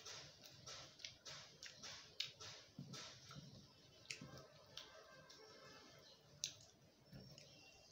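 Faint eating sounds: fingers mixing rice and curry on a metal plate, with soft clicky chewing and mouth noises, many short clicks scattered throughout.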